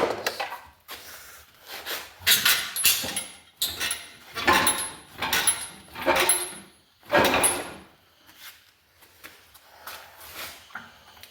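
Irregular metal clanks, knocks and rattles of tools and parts being worked loose during an engine removal, with a short high squeak repeating about once a second through the middle.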